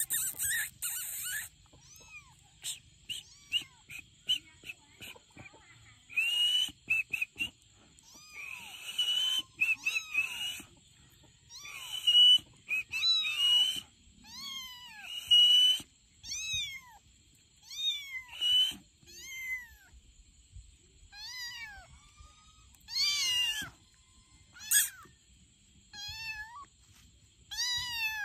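Several young tabby kittens meowing over and over: short, high-pitched cries that rise and fall in pitch, sometimes overlapping one another.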